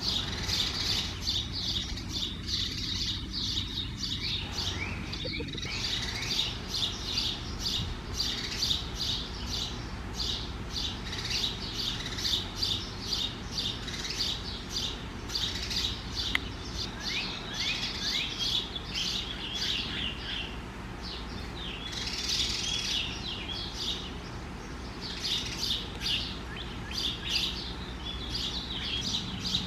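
Birds chirping: many short, high chirps, several a second, some falling in pitch, over a low steady rumble.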